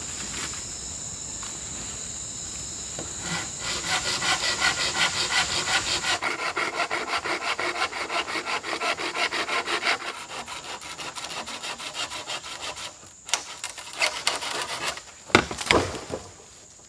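A hand saw cutting through a bamboo pole, with quick rhythmic strokes about four a second that get quieter after about ten seconds. Near the end come several loud sharp cracks and knocks as the cut bamboo comes free. A steady high insect whine runs underneath.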